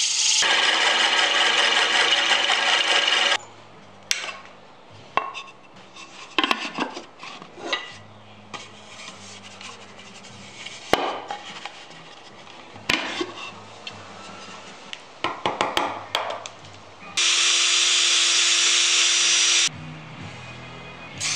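Sandpaper hissing against a wooden lid spinning on a wood lathe for about three seconds, then soft background music with scattered knocks and taps of wood being handled. A second loud burst of similar sanding noise comes about three quarters of the way through.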